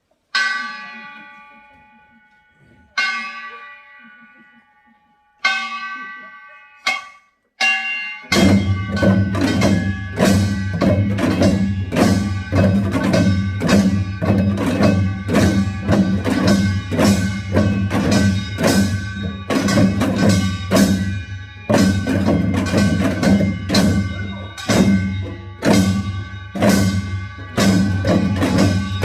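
Korean pungmul percussion. Three single ringing gong strokes, each left to fade, then a few quicker strikes, and from about eight seconds the ensemble of drums and gongs plays a fast, steady rhythm.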